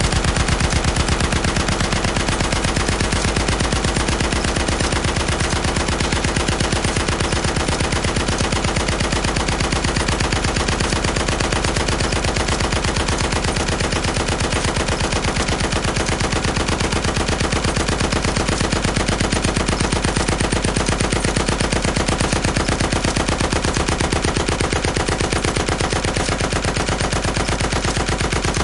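Heavy machine gun firing one long, unbroken burst of rapid, evenly spaced shots at a steady loudness.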